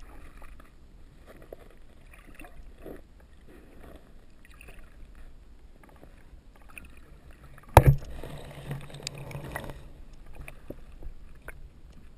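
Muffled underwater sound heard through a GoPro Hero2's waterproof housing held under a lake's surface: a low rumble with scattered faint knocks, and a loud thump about eight seconds in followed by a couple of seconds of noise.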